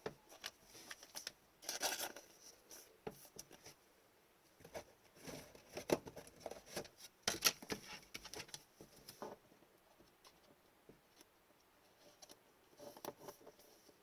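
Trading cards and pack wrappers being handled at close range: irregular rustles, slides and light taps, with a few louder flurries about two seconds in and midway.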